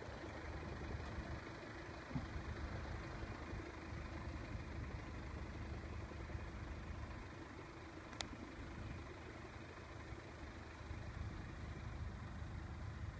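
Steady low rumble of an idling vehicle engine, with a faint steady hum over it. Two short clicks, about two seconds in and about eight seconds in.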